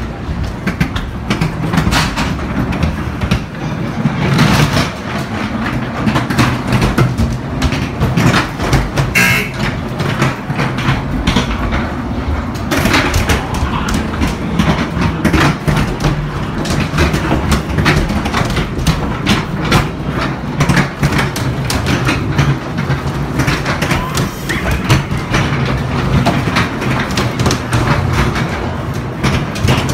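Dark-ride car clattering and clacking along its track through the dark, over a steady low hum.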